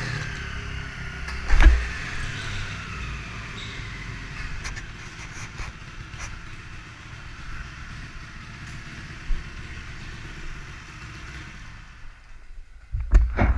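Motorcycle engine running and settling to idle, with one loud knock about two seconds in. The engine stops shortly before the end, followed by a few loud thumps.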